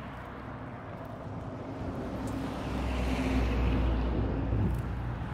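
Wind buffeting the microphone, a low rumble that swells about two seconds in and eases off near the end.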